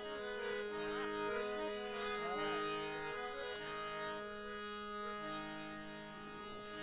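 Harmonium holding a steady drone with sustained melody notes changing above it, and a string instrument sliding between notes; no drum. This is the accompanists' instrumental lead-in to a devotional folk song.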